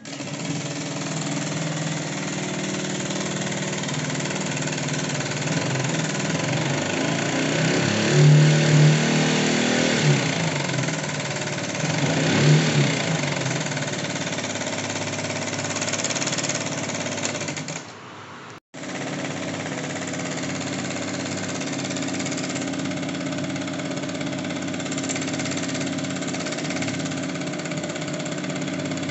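Honda Tact scooter's four-stroke engine running with the rattle of a failed cam chain tensioner, blipped up twice briefly. It drops away and cuts out for a moment about two thirds of the way through, then runs on steadily.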